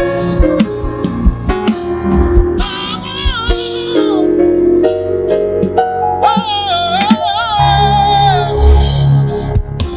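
Gospel worship song: a female voice singing long, wavering held notes over keyboard accompaniment, with drum strikes and a low bass line.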